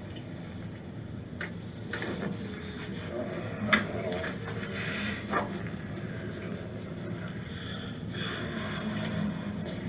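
Hands working a person's neck during a massage and manipulation: rubbing and shuffling, a few light clicks, and one sharp crack a little under four seconds in. Two stretches of breathy noise come around five seconds and again near the end.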